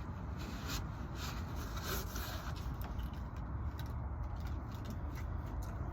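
Light rubbing and scraping with scattered soft knocks, most of them in the first couple of seconds, over a steady low rumble.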